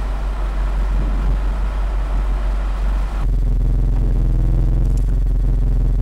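Vehicle noise heard from inside a car's cabin: a low rumble with hiss, changing about three seconds in to a steady engine drone over a constant deep rumble.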